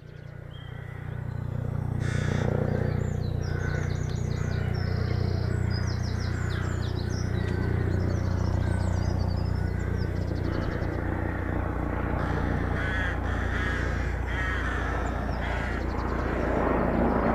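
A steady low engine drone, fading in over the first couple of seconds and holding even after that. Small birds chirp and sing over it in the first half, and a series of harsh caws comes near the end.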